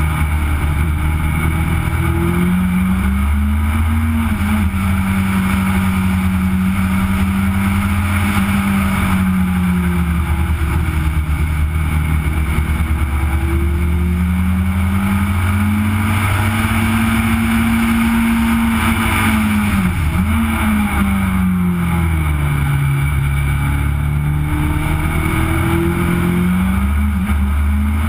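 Legend car's Yamaha four-cylinder motorcycle engine heard onboard at racing speed. Its pitch climbs under acceleration and drops back when the throttle comes off for corners, several times over, with a sharp brief dip about twenty seconds in.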